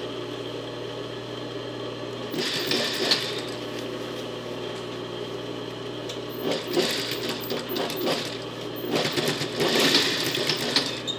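Singer industrial sewing machine stitching through a folded knit waistband in three short runs: a second or so about two seconds in, another about six and a half seconds in, and a longer run of about two seconds near the end, over a steady low hum.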